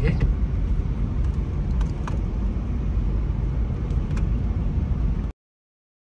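A car driving along a road: a steady low rumble of engine and road noise that cuts off abruptly about five seconds in.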